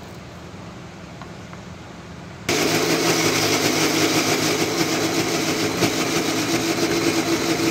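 Electric mixer grinder starts up suddenly about two and a half seconds in and runs steadily at full speed, wet-grinding soaked lentils and rice into dosa batter.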